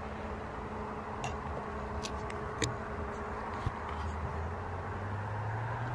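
Steady outdoor background hiss with a faint low hum. There are a few faint clicks about two seconds in, and a low steady drone comes in near the end.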